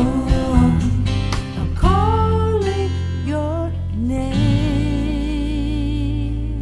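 Music: an instrumental passage with strummed guitar chords, then long sustained guitar notes bent up in pitch and held with vibrato over a steady low bass note.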